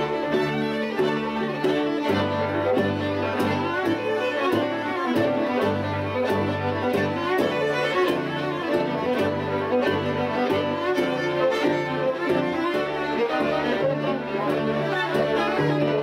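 String quartet of two violins, viola and cello playing a fiddle-style hoedown live, a busy passage of bowed notes over repeated low cello notes.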